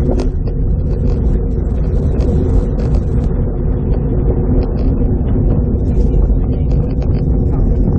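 Steady wind rushing over a bicycle-mounted camera's microphone while riding along a paved road, loud and dominated by low rumble.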